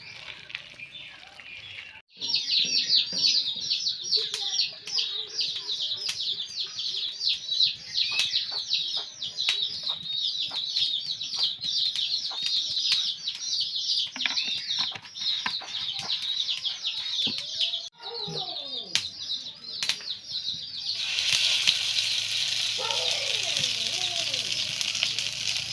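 Birds chirping rapidly and continuously, many short high chirps overlapping. About twenty seconds in, a steady hiss comes in underneath them.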